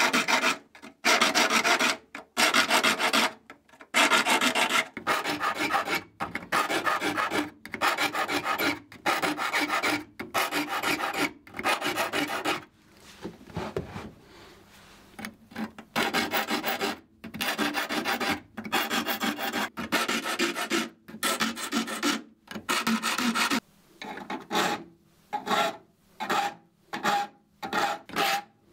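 Hand file rasping across the rip-cut teeth of a Japanese ryoba saw as each tooth is sharpened, one stroke about every second. There is a short pause midway, then quicker, shorter strokes near the end.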